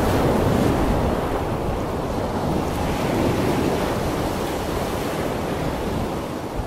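Steady rushing of sea water and wind, with no music or voices; it carries on unbroken as the picture changes to the title card.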